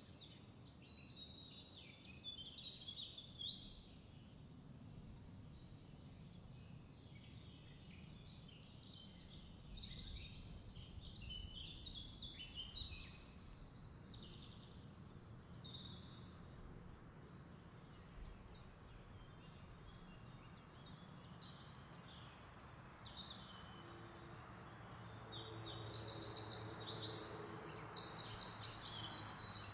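Several wild birds chirping and singing in woodland over a steady low background rumble. About 25 seconds in, one bird breaks into a louder, rapid trilling song that runs on to the end.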